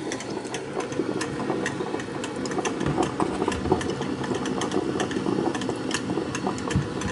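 Drip coffee maker gurgling and sputtering near the end of its brew cycle, with a steady churning and many irregular little clicks and pops.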